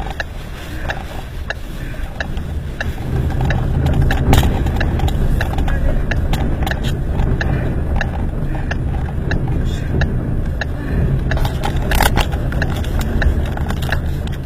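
A car buffeted by strong wind: a loud, steady low rumble with many irregular sharp clicks and knocks, growing louder about four seconds in.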